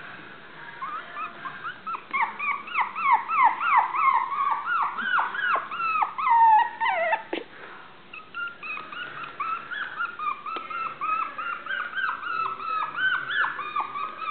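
Young puppies whining and yipping: short, high-pitched cries, each falling in pitch, coming about three a second, with a brief pause about halfway through.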